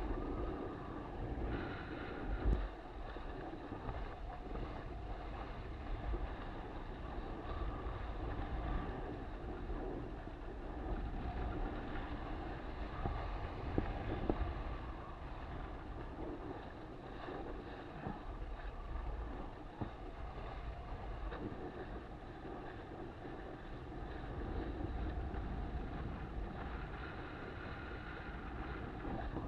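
Wind buffeting the microphone over water rushing and splashing along the hull of an RS600FF sailing dinghy moving through chop, with an occasional knock.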